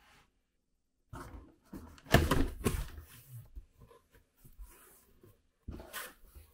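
A cardboard shipping box being cut open and its flaps pulled back, with scraping cardboard and rustling crumpled packing paper. The loudest scrape comes about two seconds in.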